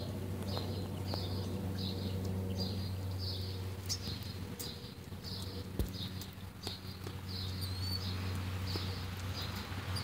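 A small creature chirping, a short high chirp repeated about twice a second, with a couple of quick rising chirps later on, over a steady low hum.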